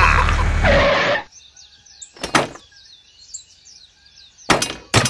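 Small birds chirping in quick, repeated high calls, after a louder mix with a low steady hum cuts off about a second in. A few sharp knocks come about two seconds in and twice near the end.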